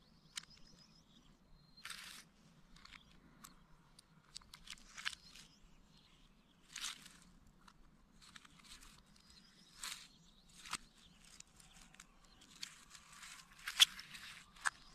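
Handling noise from a handgun being worked by hand over dry leaves: scattered small clicks and brief rustles, with a sharp click about fourteen seconds in.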